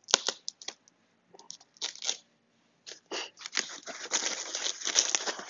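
A knife cutting and tearing through foam and bubble-wrap packing, with separate sharp rasps, then continuous crinkling and rustling as the foam sheet is pulled back by hand.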